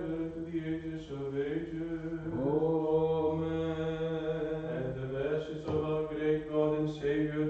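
Orthodox liturgical chant sung by a male voice: a slow melody of long held notes and gliding pitch changes over a steady low tone, carrying on the chanted close of the exclamation to the Father, Son and Holy Spirit.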